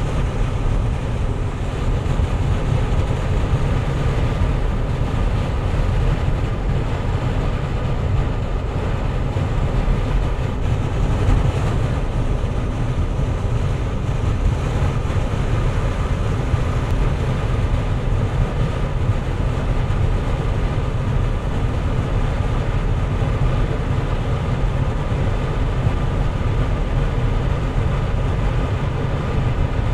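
Steady low road and engine rumble heard inside the cabin of a Land Rover Discovery 4 as it drives along.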